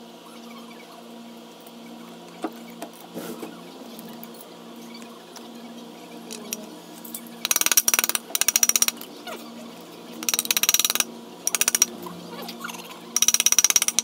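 Ratchet wrench ratcheting on a bolt of the scooter's engine cover: five quick runs of rapid clicking, each half a second to a second long, beginning about halfway through.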